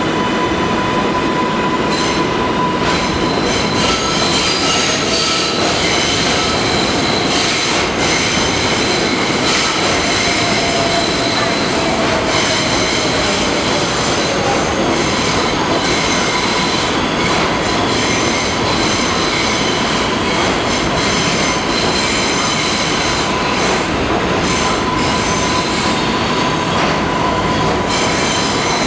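New York City Subway R188 train pulling out of an underground station and running past on the track: a steady, loud rumble of steel wheels on rail. A sustained high whine rides over the rumble, with an occasional clack.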